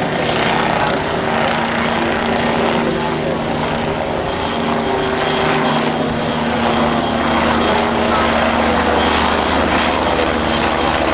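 Air ambulance helicopter running close by: a loud, steady rotor and engine noise.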